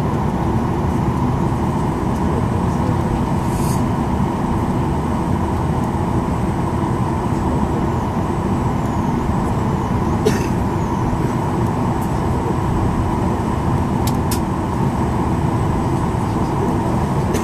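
Steady low hum inside a stationary Boeing 737-800's cabin, from its air-conditioning, with a few faint clicks.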